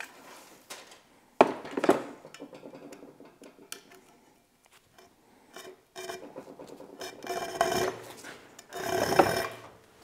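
Electrical cord pulled through a homemade wire stripper, a drilled steel bar held in a vise, its insulation scraping and rasping against the steel cutting edge as it is slit open. It comes in several rasping pulls, with a sharp start about a second and a half in and the strongest pulls near the end.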